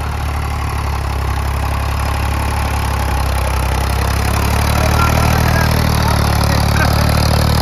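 Ford 3600 tractor's diesel engine running steadily, growing louder about four seconds in as it is revved or takes load.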